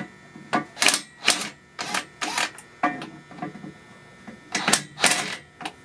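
Irregular metal clinks and clanks, about ten separate strikes, some ringing briefly: loose engine parts and tools being handled and set down during an engine teardown.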